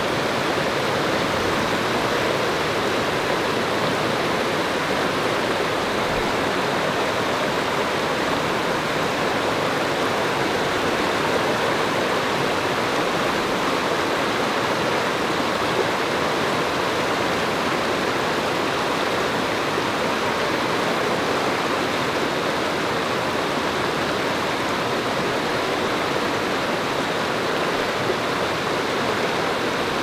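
Waterfall water pouring and rushing steadily, a dense, unbroken sound of falling water.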